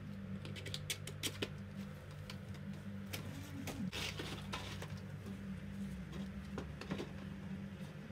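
Handling noise of paper banknotes being folded and fed into a clear plastic money bank, with scattered light rustles and clicks of paper and plastic. A steady low hum runs underneath.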